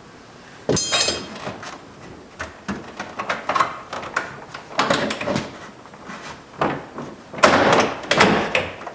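GMC Sonoma interior door trim panel being pried off, its plastic retaining clips popping loose with sharp clicks and knocks. The loudest stretch of rattling and scraping comes near the end, as the panel pulls free of the door.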